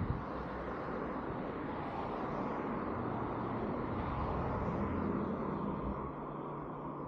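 Street traffic noise: a vehicle passes, swelling to its loudest about four to five seconds in and then fading.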